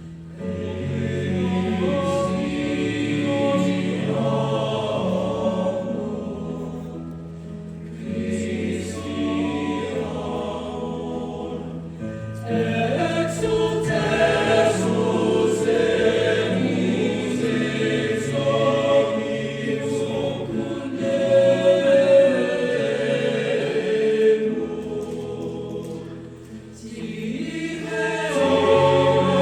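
Choir singing a song in phrases, with brief dips between phrases about seven, eleven and twenty-six seconds in.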